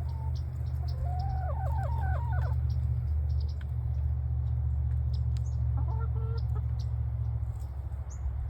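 Backyard hens clucking, a quick run of calls about a second in and a shorter one around six seconds, over a steady low rumble.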